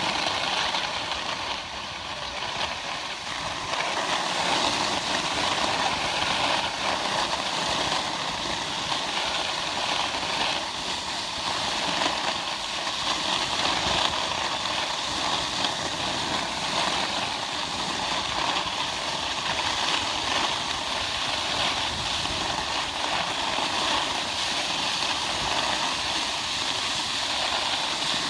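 Skis sliding and scraping over packed, groomed snow: a steady hiss.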